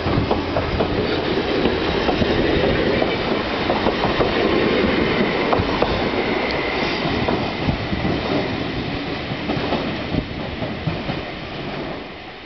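Hokuriku Railroad Ishikawa Line electric train pulling out and running past, its wheels clattering over the rail joints, then fading as it moves away near the end.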